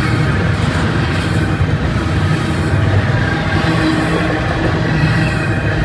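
Double-stack container well cars rolling past, a steady loud rumble of steel wheels on rail, with a few faint ringing tones above it.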